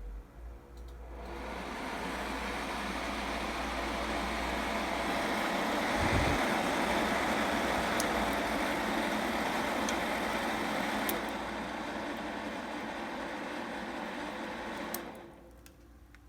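CLC360 liquid cooler's fans spinning up a second or so in and running at high speed as a steady rushing noise, then dropping back sharply near the end. A brief low thump comes about six seconds in.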